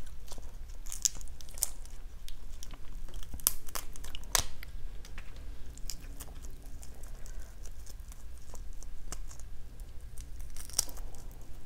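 Shells of grilled salt-and-chili shrimp cracking and tearing as they are peeled by hand, in irregular sharp crackles; the loudest crack comes about four seconds in, with another cluster near the end.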